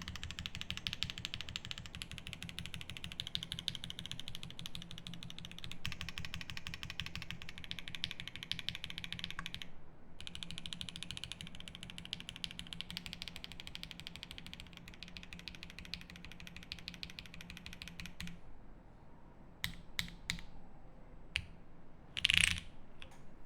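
Fast typing on a 7V mechanical keyboard with lubed Durock L7 62g linear switches, a polycarbonate plate and GMK keycaps: a dense, rapid clatter of keystrokes, with a brief pause about ten seconds in. About eighteen seconds in the typing stops, leaving a few scattered key clicks and one louder clack near the end.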